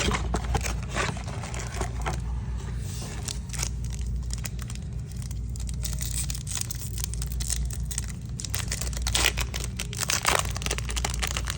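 Foil wrapper of a Topps Chrome baseball card pack being torn open and crinkled in irregular crackles, over a steady low hum.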